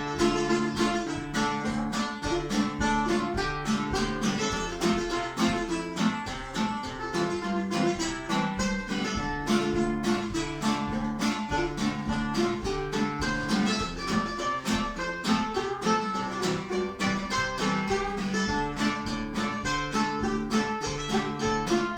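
Acoustic plucked-string instrumental: a mandolin picked in quick, continuous notes over steadier lower notes.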